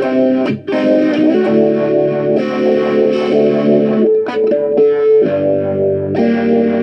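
Electric guitar chords played through a two-stage 'bird phaser' pedal (version 9) feeding a ZenDrive overdrive, giving a phased, distorted tone. The chords ring out and change several times, with a brief break about half a second in.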